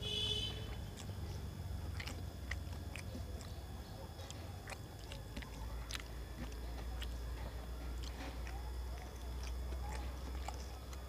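A person chewing and eating rice and curry by hand, with small wet mouth and finger clicks scattered irregularly over a steady low rumble. A brief high-pitched squeak sounds right at the start.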